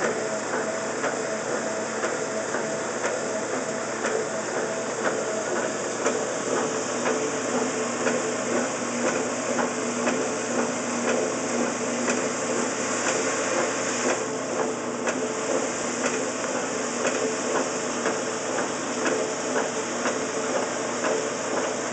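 1969 Wards by Norge washing machine running in its wash cycle: the drive motor hums steadily, with a rapid, regular clicking.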